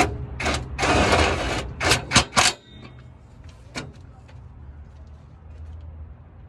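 Sharp metallic clicks and knocks of hand tools and exhaust parts being worked during a longtube header install, with a short rasping burst about a second in and three loud clanks around two seconds in. After that only a low steady hum remains.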